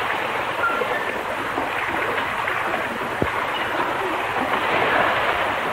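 Steady hiss of rain, with a brief low thud about three seconds in.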